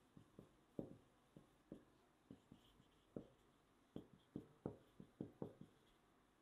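Marker pen writing on a whiteboard: faint, irregular taps and short scratchy strokes, two or three a second, as letters are written.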